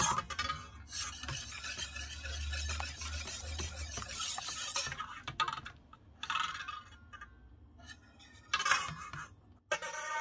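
Wire whisk beating eggs and sugar in a stainless steel bowl over a hot-water bath, scraping and clinking against the metal for about the first five seconds. After that, only scattered clinks and knocks of the metal bowls.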